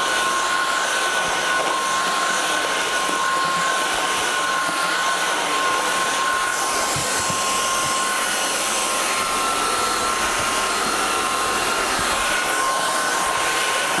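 INSE S610 cordless stick vacuum running steadily with its roller brush floor head on carpet: a constant high motor whine over rushing airflow.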